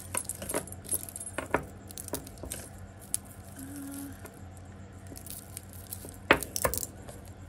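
Costume jewelry being handled: beads and chain clicking and rattling against each other in light, irregular clicks, with a few sharper clinks about six seconds in.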